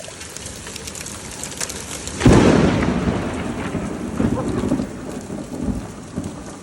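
Hail pattering and clicking on the ground and hard surfaces. About two seconds in, a loud clap of thunder breaks in and rumbles away over the next few seconds.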